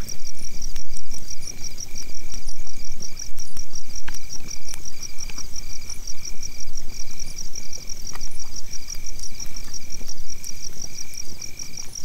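Night chorus of insects and frogs: a fast, steady pulsing trill high up and a short note repeated about twice a second, over a steady low rumble.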